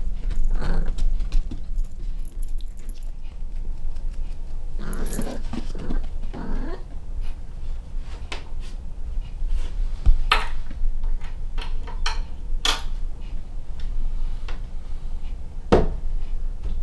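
A cat's short vocal sounds about five to seven seconds in, among scattered clicks and taps as it moves about, over a low steady hum.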